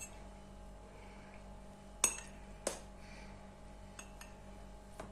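Light clinks of a drinking glass being handled and tapped as flour is tipped from it into a mixing bowl of batter: a sharp clink about two seconds in, another shortly after, and a few lighter taps near the end.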